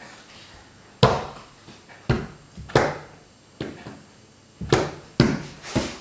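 Open hands slapping a tabletop one at a time, about seven sharp slaps at an uneven pace, a few coming close together. In this hand-slapping game one slap passes the turn to the next hand and a double slap reverses the direction.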